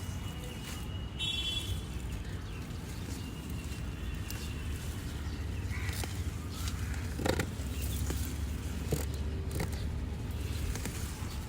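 Outdoor ambience with a steady low rumble, a short high bird call about a second in, and scattered light clicks and rustles throughout.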